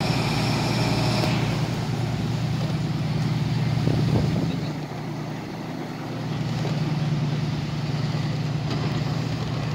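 Steady low hum of a marine engine driving a vessel through the harbour water, easing off briefly about halfway through.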